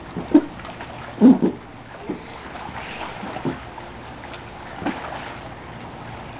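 A dog playing in a lawn sprinkler's spray: a steady hiss of water with several short, sharp sounds from the dog, the loudest two in the first second and a half, then fainter ones every second or so.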